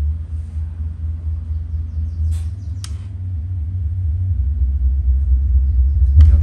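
Deep bass rumble from a subwoofer fed by a digital karaoke processor, with almost nothing above the lowest notes, growing louder in the second half. Two sharp clicks come near the middle and another near the end.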